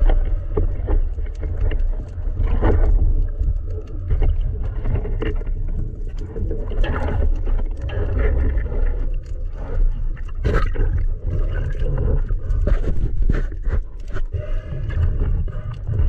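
Underwater recording through a dive camera housing: a muffled low rumble of water moving around the camera, with scattered clicks and knocks from the speargun being handled, the sharpest about ten seconds in.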